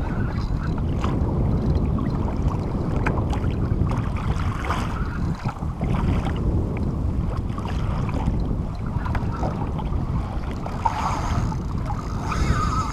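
Wind rumbling on the microphone, with water lapping against a kayak hull and a few light knocks.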